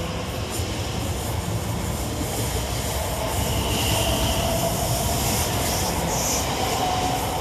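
Class 345 Aventra electric multiple unit pulling out past the platform, with a steady rumble of wheels on rail and a faint electric whine that rises slowly in pitch as it gathers speed.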